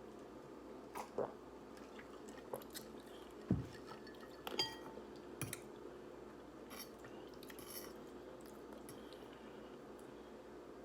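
Person eating instant ramen noodles close to the microphone: soft wet chewing and mouth smacks, with a few sharper clicks scattered irregularly.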